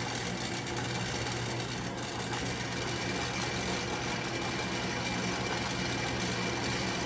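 Electric drill motor running steadily, drilling a hole through a steel plate.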